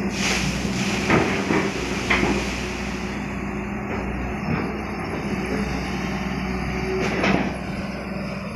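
Long-reach excavator's diesel engine running steadily under hydraulic load, with several metallic clanks and scrapes from the bucket digging in the pit, loudest about a second in and again near the end.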